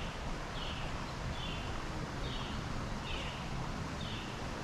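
A bird calling over and over, a short falling note repeated a little more than once a second, over a steady rush of flowing stream water.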